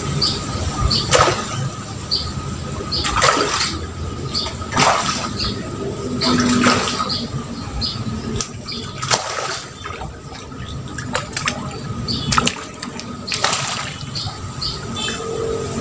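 A hooked fish splashing and thrashing at the surface of a pond as it is played on a rod, in about six separate surges of splashing.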